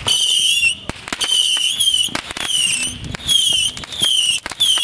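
Aerial firework shells going off in a rapid run of sharp bangs and pops. A high whistling tone repeats over them about one and a half times a second, falling slightly in pitch each time.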